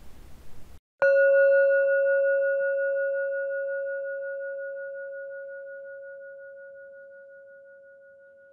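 A singing bowl struck once about a second in, ringing with one clear tone and a few higher overtones, one of which wavers in level, and fading slowly over several seconds.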